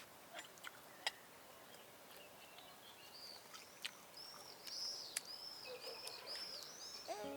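Birds singing outdoors: a series of quick, arched high chirps repeated several times in the second half, over faint background ambience with a few scattered clicks earlier on.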